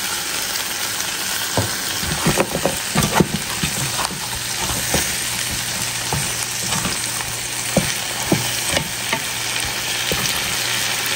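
Mango and tomato sizzling as they fry with hassa fish in curry masala, with a spoon knocking against the pot as it is stirred, in a cluster of knocks about two to three seconds in and again near eight seconds.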